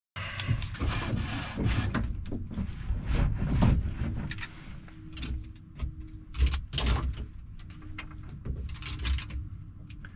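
Irregular clicks, knocks and rubbing from a hand working toggle switches on a Bell 412 helicopter's overhead console, with the engines not yet running. A faint steady hum comes in about four seconds in.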